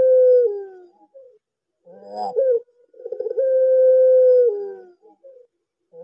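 Ringneck dove (the Indonesian burung puter) cooing in the long-voiced style. The tail of one long coo falls away in the first half second. About two seconds in comes a full call: a short rough opening, a stuttering rolling phrase, then a long level note of about a second that drops in pitch at the end, followed by a short note.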